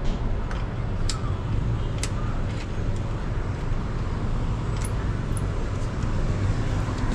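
A steady low machine hum, with a few faint light clicks and taps.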